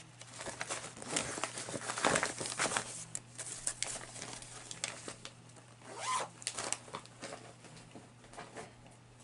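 Plastic being handled, rustling and crinkling in quick crackles with short zip-like rasps, busiest in the first few seconds and thinning out after.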